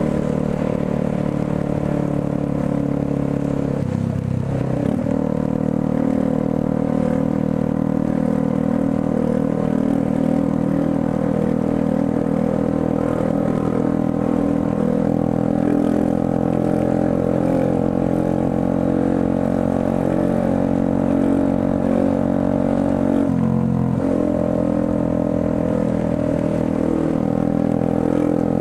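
Motorcycle engine running steadily at low speed. Its note dips and picks up again about four seconds in, and again about five seconds before the end.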